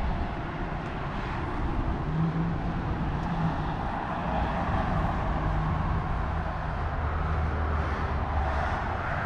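Motor vehicle engine noise and road traffic: a steady low drone whose pitch shifts a little over the seconds, under a wide rushing noise.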